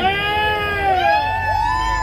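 Tyres of a BMW E46 3 Series coupe squealing as the car slides, a high, wavering screech that rises and falls in pitch, over the low rumble of its engine.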